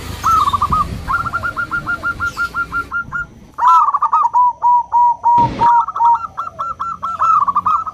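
Zebra dove (perkutut) cooing its song. First comes a quick run of short, evenly spaced coo notes, then longer rolling phrases from about three seconds on. A brief thump-like burst of noise comes a little past halfway.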